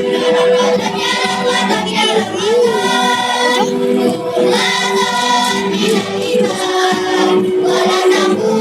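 Children's choir singing a song together, with held notes and shifting melody.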